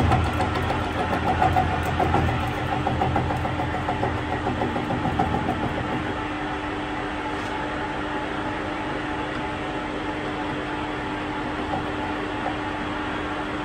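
Metal lathe running with its chuck spinning, a steady motor and gear hum, while a hand-cranked ball-turning attachment cuts a ball shape on the workpiece. The cutting is loudest and roughest for the first five or six seconds, then the lathe runs on more evenly.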